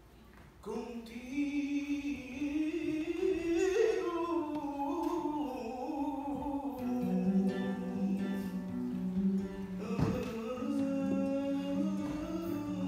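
A man singing a long, wavering melodic line to his own acoustic guitar accompaniment. The voice comes in about half a second in and climbs, then falls. A chord is struck about ten seconds in.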